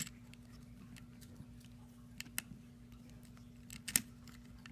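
Small plastic Lego bricks being handled and pressed onto a model: a few sharp clicks, the loudest about four seconds in, over a faint steady hum.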